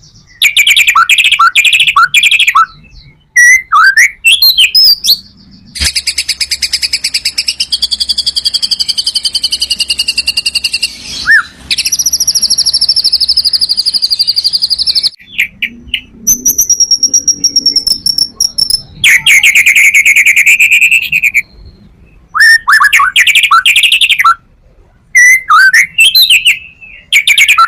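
White-rumped shama (murai batu) singing loudly: a varied song of short whistled phrases broken by brief pauses, with two long, rapid trills in the middle. It is a full-repertoire song of the kind used to provoke other shamas into singing.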